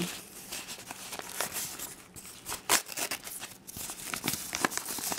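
Brown kraft paper crinkling and tearing as it is pulled open by hand from around a potted plant, with irregular crackles and a few sharper rips.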